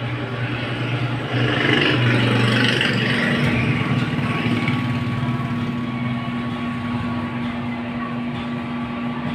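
Tosunra MK9600 power amplifier powered up for testing after repair, giving a steady low hum with a whirring, rushing noise over it. The rushing is loudest between about one and four seconds in.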